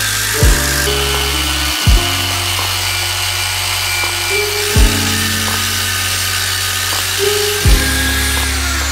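Jazz lo-fi hip-hop background music: deep held bass notes that change every second or two, with a few kick-drum thumps.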